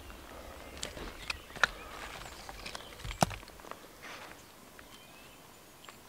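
Pieces of split dry kindling wood knocking and clacking together as they are picked up and laid down on the forest floor, with a light rustle of shavings. The two sharpest clacks come about a second and a half and three seconds in.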